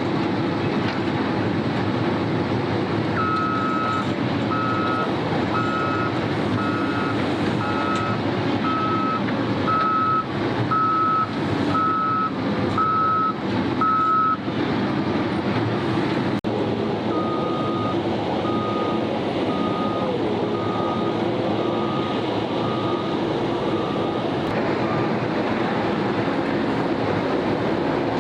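Diesel engines of heavy construction machines running under a steady load, with reversing alarms beeping at a steady pace. One alarm beeps from about 3 s in to about 14 s; a second, slightly lower-pitched alarm starts a few seconds later and stops, then comes back near the end.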